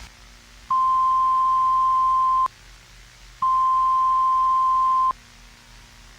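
Two long, steady electronic alert beeps of one tone, each just under two seconds with about a second's gap between them, over a low static hiss.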